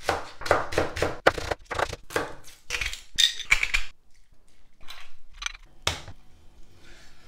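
A kitchen knife chopping scallions on a bamboo cutting board in quick, even strokes, about three to four a second, followed by a few scattered taps and one sharp knock about six seconds in.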